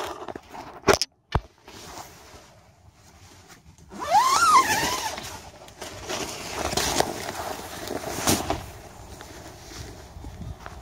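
A single shotgun blast about a second in, fired at a wild turkey, with a second sharp crack just after. From about four seconds in come several seconds of loud rustling and scuffling, with a brief rising cry near the start of it.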